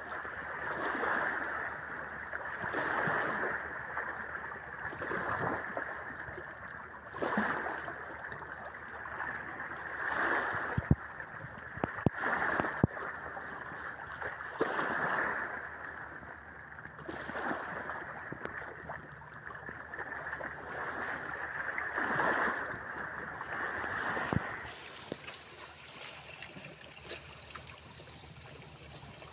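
Small waves washing in and out over shallow water and rocks, swelling and fading about every two seconds, with a few sharp clicks near the middle. About 25 s in it changes to a fainter, hissier wash.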